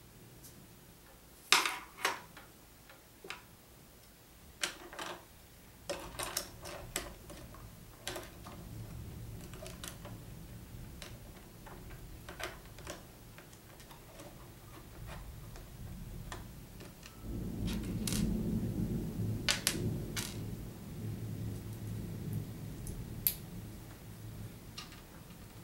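Plastic Lego pieces clicking and clattering as they are picked up, sorted and pressed together, in scattered sharp clicks. A low hum sits underneath and grows louder for a few seconds about two-thirds of the way through.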